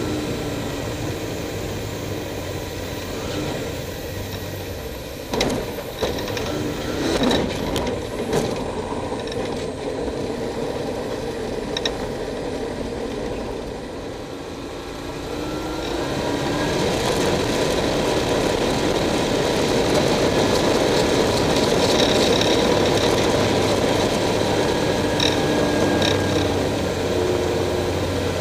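Light aircraft's engine heard from inside the cockpit, running steadily with a few sharp clattering knocks about five to eight seconds in. About sixteen seconds in it gets louder and stays at that higher power as the plane climbs away.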